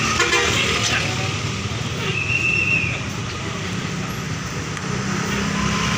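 Street traffic with vehicle engines running. A short, high, steady tone sounds for under a second about two seconds in, and a low steady hum comes in near the end.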